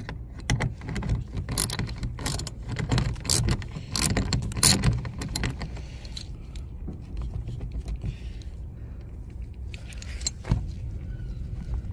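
Ratchet wrench clicking in quick runs as it backs out a mounting bolt of the window regulator motor. The clicking stops about halfway through, leaving a low steady rumble, with one more sharp click near the end.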